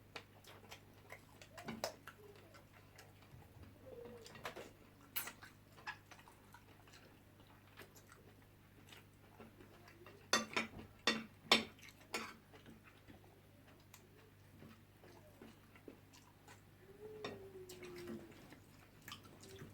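Close-up chewing and mouth sounds of people eating jollof rice and fish, with scattered small clicks and a run of sharper clicks about ten to twelve seconds in. A short falling hum comes near the end.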